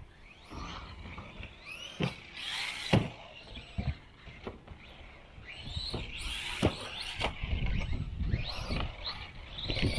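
A 1/12-scale LC Racing LC12B1 buggy's 2850-size 5300kv brushless motor whines up and down in pitch as the buggy accelerates and slows. A few sharp knocks come from the buggy hitting the track, the loudest about three seconds in.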